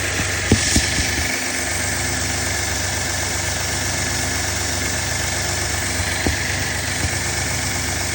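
Vehicle engine idling steadily, with a few short knocks standing out: two about half a second in and a couple more later on.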